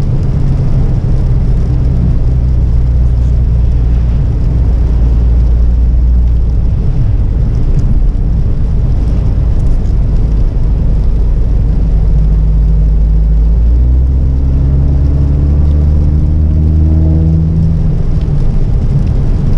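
Volkswagen Golf GTI Mk6's turbocharged four-cylinder engine and road noise heard inside the cabin while driving; about two-thirds of the way in, the engine note rises steadily as the car accelerates.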